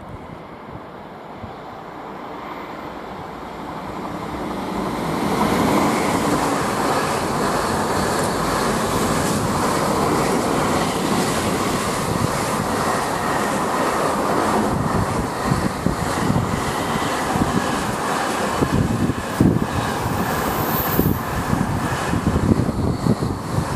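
Class 88 locomotive and its intermodal container freight train approaching, growing louder over the first few seconds, then the container wagons rumbling past close by. From about halfway through, the wheels clatter with irregular knocks over the rail joints.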